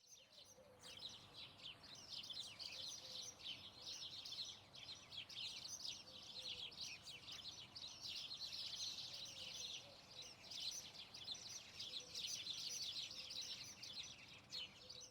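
Faint chorus of many small birds chirping and singing at once, a dense, unbroken twittering.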